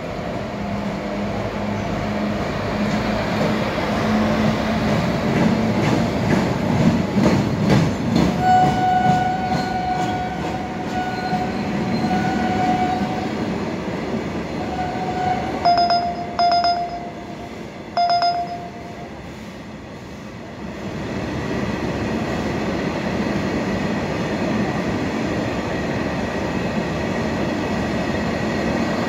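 WCAM-2 electric locomotive and a long rake of ballast hopper wagons rolling past, with a steady rumble and rattle of wheels on the track and a low hum at the start that fades. From about a third of the way in, a high steady tone sounds in long stretches, then in a few short blasts near the middle. The noise drops briefly after two-thirds of the way through, then picks up again as more wagons pass.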